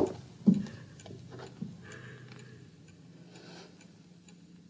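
Clock ticking about twice a second in a quiet room, the first couple of ticks louder, over the faint steady hum of an old film soundtrack.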